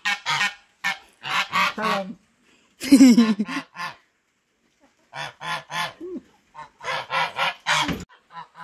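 Domestic geese honking: short, loud calls in quick runs of two to four, with gaps of about a second between the runs.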